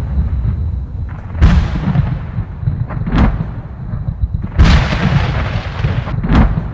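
A deep, continuous rumble broken by four loud booms, spaced about a second and a half apart.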